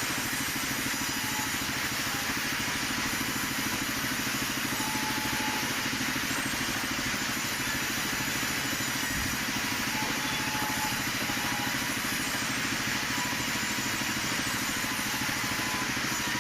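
Plywood-cutting machine running steadily, a fast, even mechanical pulsing that holds the same pitch throughout.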